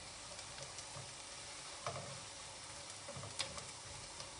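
Sliced onions sizzling in hot oil and ghee as they fry to a half-caramelized brown, with a couple of sharp clicks, about two seconds in and again near three and a half seconds.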